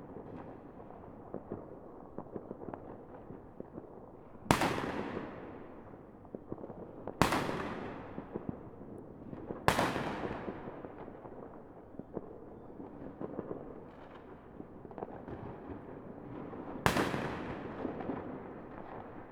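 Fireworks going off: four loud bangs at uneven intervals, each trailing off in a long echo, with many smaller pops and crackles between them.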